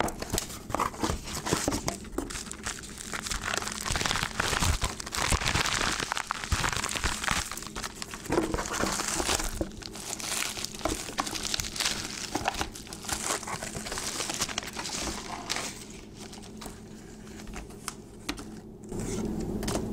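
Packing paper and cardboard crinkling and rustling in irregular bursts as a shipping box is unpacked by hand, dying down in the last few seconds.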